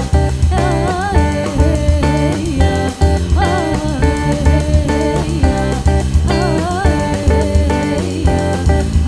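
Live jazz: an archtop electric guitar plays a single-note solo line over electric bass and a drum kit.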